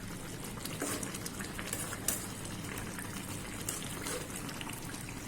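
Fish and gourd curry simmering in a pan on the stove, the watery gravy bubbling steadily with scattered small pops.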